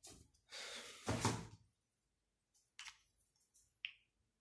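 Handling noises: a rustle with a dull thump about a second in, then two faint clicks near the end.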